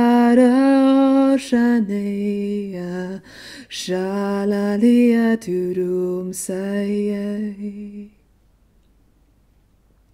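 A woman's voice singing wordless long held notes, unaccompanied, moving in small steps of pitch with short breaks between phrases. It stops about eight seconds in.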